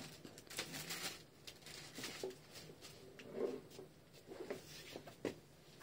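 Soft rustling and scattered light clicks of handling: hands moving the leg and the dressing materials against sheets and gloves.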